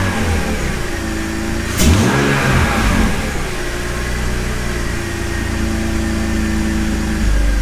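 BMW E46 330ci's inline-six engine idling, blipped with the throttle: revs settle back as it begins, rise and fall again about two seconds in, then it holds a steady idle. The engine is being checked for a rough idle and is running evenly and responsively, sounding pretty good.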